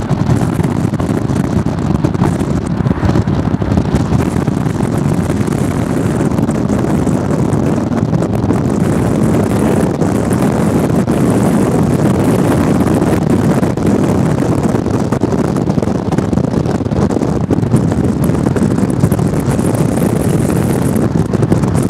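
Strong wind rushing over the microphone: a loud, steady rumbling rush with no letup.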